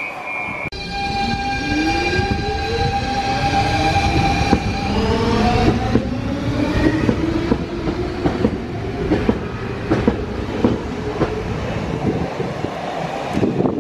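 Red Copenhagen S-train electric multiple unit moving off along the platform. Its motors give several whining tones that rise in pitch for about five seconds as it gathers speed, then the wheels click over rail joints as it runs away.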